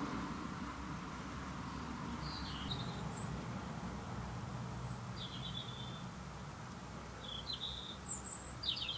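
Several short, high bird chirps a second or two apart, over a steady low background hum.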